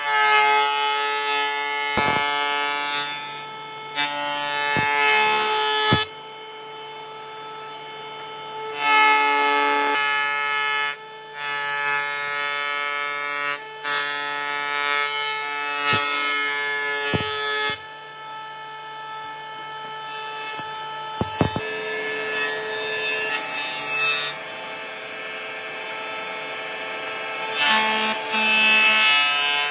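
Jointer running with a steady whine, its cutterhead shaving boards in about six loud, rough passes of a few seconds each. A few short knocks of wood fall between the passes.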